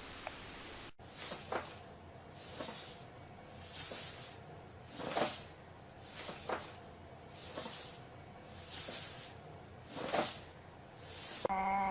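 A cat making rhythmic hissing breaths, about one every second and a quarter, then starting a meow near the end.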